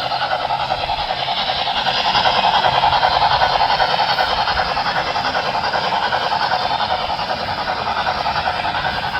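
Model train running along the layout's track, a steady, fast-fluttering running noise that grows a little louder a few seconds in and eases off toward the end.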